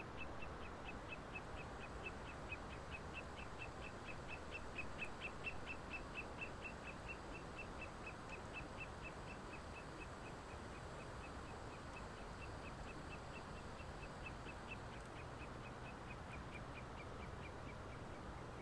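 A high chirping call repeated steadily, about five short chirps a second, over a soft even hiss.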